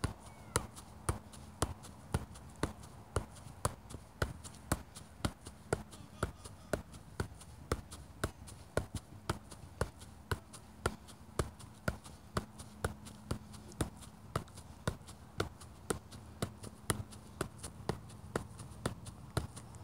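A soccer ball being juggled, struck again and again in an even rhythm of about two touches a second, each a short tap.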